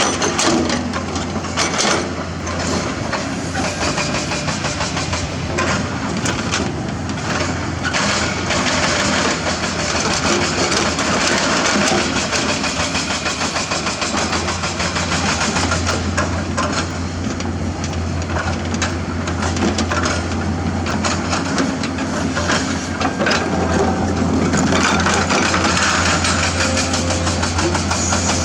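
Hydraulic excavator's diesel engine running steadily, with repeated knocks and scraping of the bucket working limestone rock.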